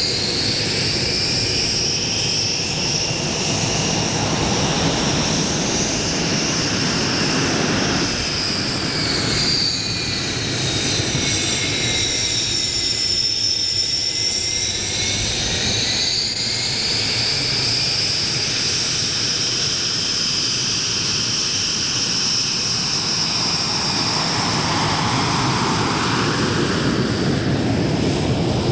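A MiG-21UM jet trainer's turbojet running at taxi power: a steady jet rush under a high turbine whine. The whine dips in pitch midway and then rises again.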